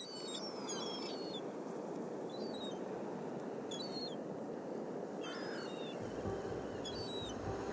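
Birds chirping in short, high clusters over a steady outdoor background hiss. About six seconds in, a low rumble and a held musical note come in.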